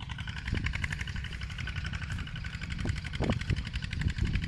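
A small engine running steadily with a fast, even pulse.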